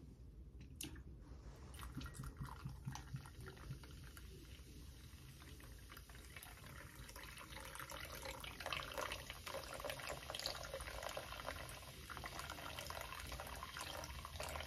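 Schweppes ginger ale poured slowly in a thin stream into a stemmed martini glass, the carbonated soda fizzing and crackling faintly as it fills.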